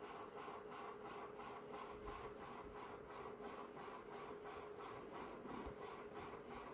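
Ragdoll cat purring faintly while being stroked: a soft, even, rasping rhythm.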